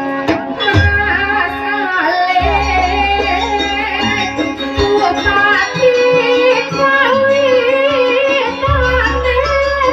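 Live Javanese jaranan music: a wavering melody, tagged as singing, over drums, with deep low tones that come in for a few seconds at a time.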